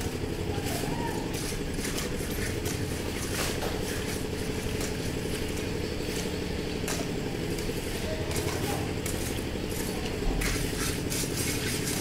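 An engine running steadily at a constant pitch, with scattered metal clinks and knocks of metal pans and tools on a concrete job.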